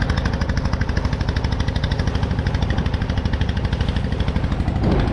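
Boat engine running steadily with a rapid, even knocking beat.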